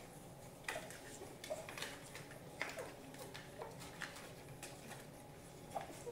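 Young puppies nursing on their mother, with faint, scattered short squeaks and suckling clicks, roughly one or two a second.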